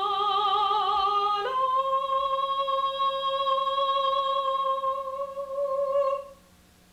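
A woman singing unaccompanied, holding the last note of the song on the word "chalom" ("dream"). The note first wavers with wide vibrato, then steps up about a second and a half in to a higher note, held steady for nearly five seconds until she stops.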